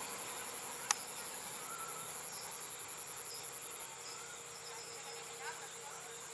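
Insects trilling steadily in vegetation, a high, fast, even pulsing that eases slightly about four seconds in. A single sharp click comes about a second in.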